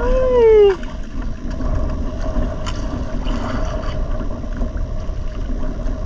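A man's short drawn-out vocal groan that rises and falls in pitch, over in under a second. It gives way to a steady low rumble and hiss with a faint steady hum, aboard a small outrigger boat at sea.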